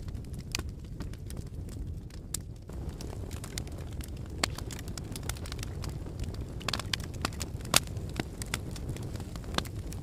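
Wood and paper fire burning in a metal fire tray: a steady low rumble of flames with scattered sharp crackles and pops, one louder pop a little under eight seconds in.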